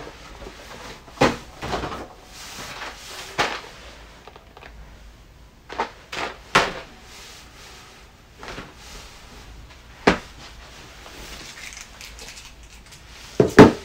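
Irregular knocks and clicks from handling a boxed collectible figure and its packaging, with a closely spaced pair near the end as the loudest.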